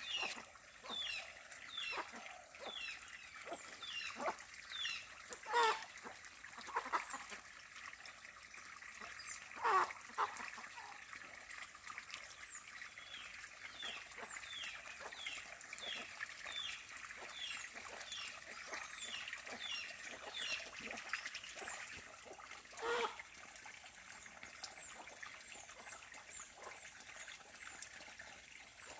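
Muscovy duck bathing in a shallow muddy puddle: water trickling and splashing softly, with a few louder sounds about six, ten and twenty-three seconds in. High short chirps repeat about twice a second in the background for stretches.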